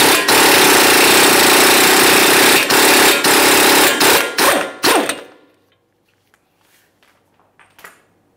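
Impact wrench hammering off a front CV axle's 32 mm hub nut in a long burst with a few short trigger pauses, stopping about five seconds in. A few faint clicks follow.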